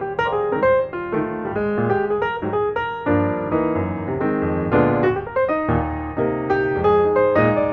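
Background piano music with a quick run of notes.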